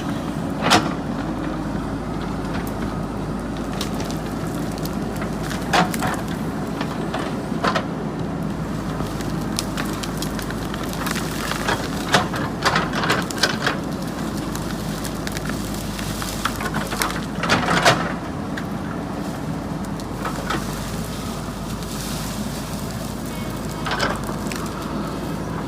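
JCB 3DX backhoe loader's diesel engine running steadily, with repeated sharp cracks and snaps of wood and brush breaking as the machine clears ground. The cracks bunch together about twelve to fourteen seconds in and again near eighteen seconds.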